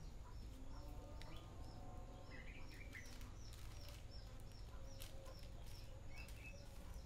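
Faint bird chirping: one short high note repeated about two to three times a second, with a few other brief chirps, and some faint clicks.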